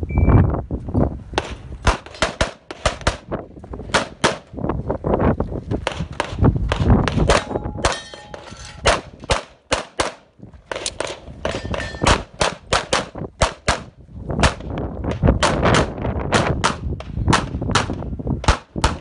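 Rapid 9mm pistol fire from a Walther PPQ Q5 Match SF, in fast strings of several shots a second with short pauses near the middle. Steel targets clang when hit.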